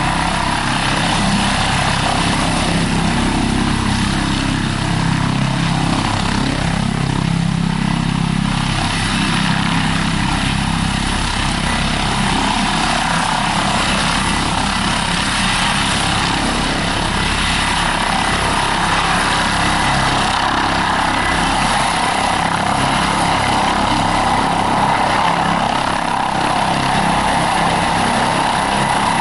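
Airbus ACH145 five-bladed helicopter hovering low, its main rotor, fenestron tail rotor and twin turbines running steadily with a thin high whine.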